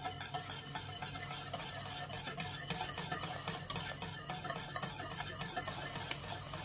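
Wire whisk stirring hot milk in a stainless steel saucepan while fine semolina is poured in, a steady swishing with fine ticks of the wires against the pan.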